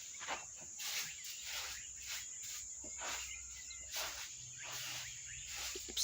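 Broom sweeping a floor: repeated short, scratchy strokes, about two a second.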